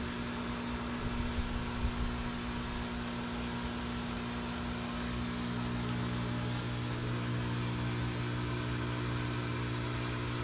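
Fog machine running, its pump giving a steady electric hum that grows a little stronger about halfway through. Gusts of wind rumble on the microphone between about one and two seconds in.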